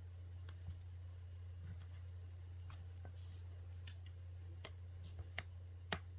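Faint scattered clicks of the plastic clips of a tablet's back cover being pried loose, with a few sharper snaps in the last second or so, over a steady low hum.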